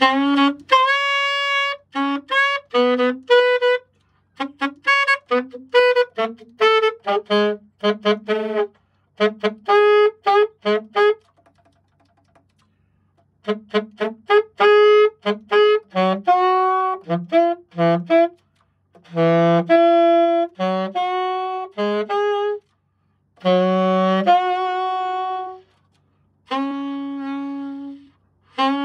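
A new Yamaha alto saxophone is being test-played in short phrases of single notes, some held and some short, with a pause of about two seconds near the middle. The player judges that some notes are hard to blow and the pitch is slightly off, and that the horn needs adjusting.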